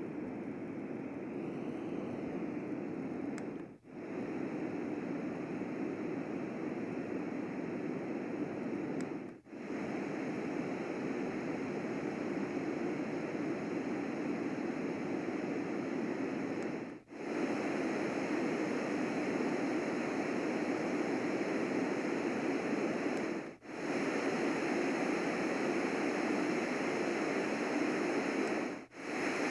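LectroFan noise machine playing its white-noise settings, a steady hiss that cuts out briefly five times as it is switched to the next noise. The settings after the middle of the run are a little louder and brighter.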